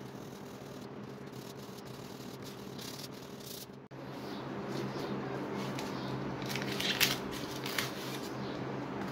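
Handling noises of a homemade steel axe being set in a bench vise and its blade wiped with a cloth: light rattles and scrapes, with a short louder scraping rustle about seven seconds in, over a steady low hum.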